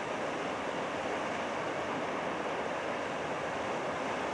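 Steady rushing of a river flowing over shallow rapids.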